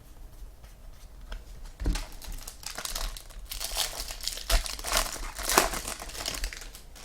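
Foil trading-card pack wrapper being torn open and crumpled: a run of crinkling and crackling that starts about two seconds in and dies away near the end.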